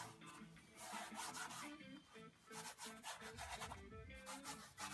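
Repeated rough scrubbing strokes of paint being worked across a wet acrylic canvas, coming and going in quick strokes. Soft background music with a slow line of low notes plays underneath.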